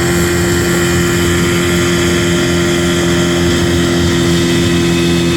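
1974 Evinrude 85 hp V4 two-stroke outboard running steadily with the boat under way, its pitch holding even over a rushing hiss.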